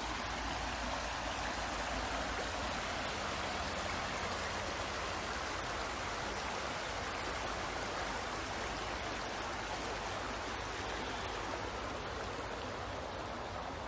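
Water flowing steadily in a stream, an even rushing sound.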